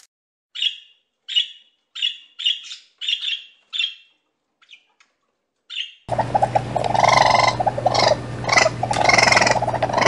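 A rabbit's short high squeaks, about nine of them spaced half a second to a second apart. About six seconds in, a sun conure's loud, harsh chattering calls take over.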